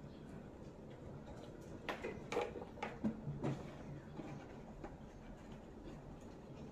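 A handful of light clicks and knocks of a plastic side-mirror housing being handled, bunched about two to three and a half seconds in, with a few fainter taps later over a low steady hum.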